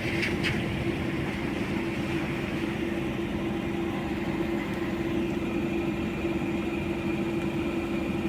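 Steady vehicle running noise with a constant low hum.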